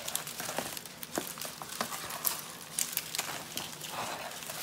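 Silver foil fringe and glitter-cardstock letters of a party banner rustling and crinkling as they are handled, with many small sharp crackles.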